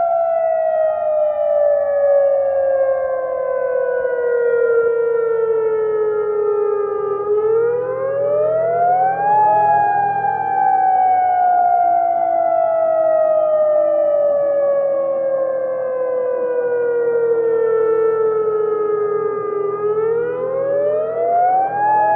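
Emergency-alert siren tone that slides slowly down in pitch for about seven seconds, climbs quickly over about two seconds, slides down again, and starts climbing once more near the end, over a low steady drone.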